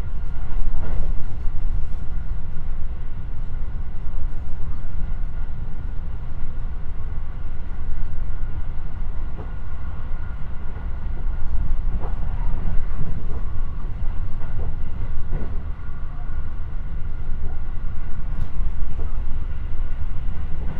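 A JR West 223 series electric train running at speed, heard from inside the passenger cabin. There is a steady low rumble of wheels on rail, a steady high whine over it, and occasional faint clicks.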